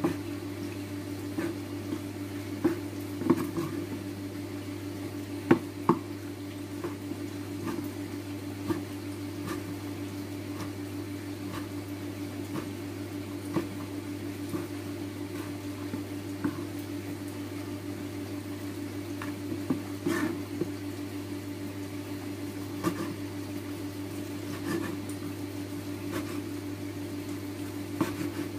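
Chef's knife chopping cooked pork on a wooden cutting board: irregular knocks of the blade hitting the board, a few clustered together then spaced out, over a steady low appliance hum.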